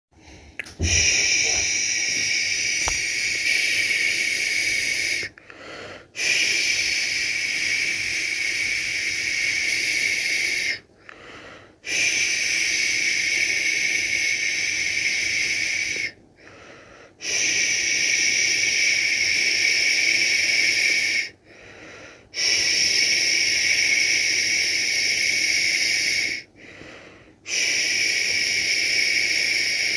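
A person making long, steady 'shhh' shushing sounds to lull a baby to sleep. There are six shushes of about four seconds each, with a short pause between them for a breath.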